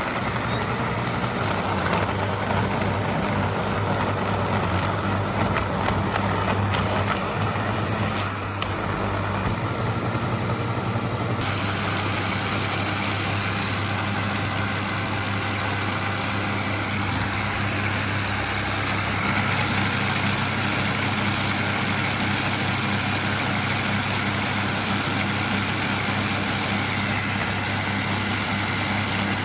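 Vacuum cleaner running, its motor whine rising for the first few seconds as it spins up, then a steady suction roar. The sound shifts in tone about eleven seconds in.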